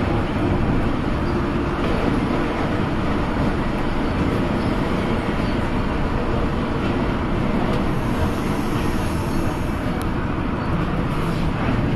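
Düsseldorf Airport SkyTrain, a suspended monorail car, running steadily along its overhead track beam, heard inside the cabin as an even running noise from its rubber-tyred bogies.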